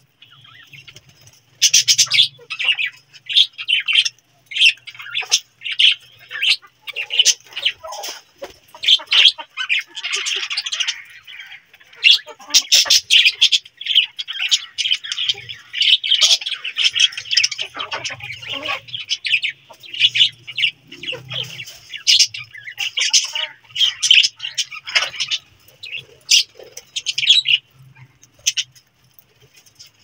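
A flock of budgerigars chattering: many rapid, high, short chirps overlapping almost without a break, growing loud about a second and a half in.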